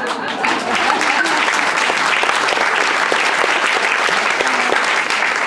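Audience applauding: many hands clapping in a dense, steady wash that builds up in the first half second.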